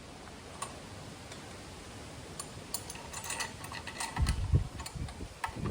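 Light metallic clicks and ticks of air cleaner bolts being handled and threaded in by hand on a motorcycle, with a few dull low bumps about four seconds in and again near the end.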